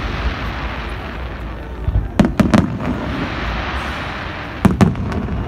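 Fireworks shells bursting overhead: a quick cluster of three sharp bangs a little after two seconds in, then two more near the end, with a steady hiss between them.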